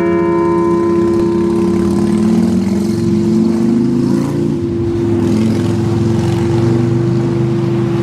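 Liberty Bell replica ringing on after a single strike, its upper overtones dying away within the first second while its deep hum note holds steady throughout. An engine runs underneath, its pitch rising and falling for the first few seconds, then settling.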